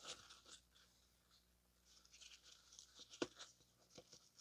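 Near silence with faint scattered rustling and light ticks from hands working a cut-open oil filter's thin paper element and metal parts, with one sharper tick about three seconds in.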